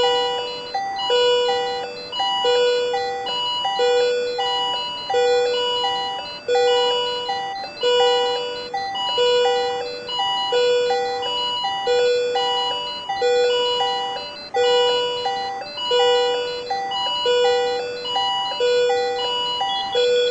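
Patient monitor alarm sounding for supraventricular tachycardia: a short figure of pitched electronic beeps, the lowest held longest, repeating about every 1.3 s.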